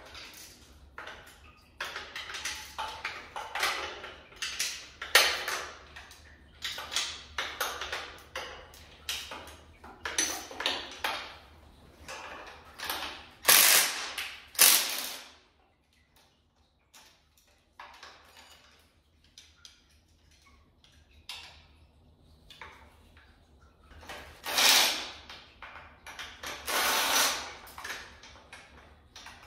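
Cordless power driver spinning the intake manifold bolts on an LS V8 in two quick zips about halfway through, with another burst near the end. Between them come rapid ratchet-like clicking and clanking of hand tools on the engine.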